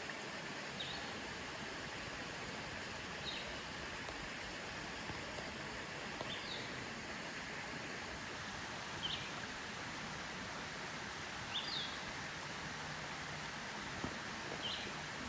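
Woodland ambience: a steady background hiss, with a bird giving a single short high chirp about every two and a half to three seconds, six times.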